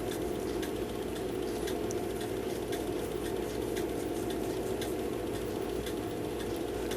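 A steady mechanical hum with faint, scattered ticks and light taps over it.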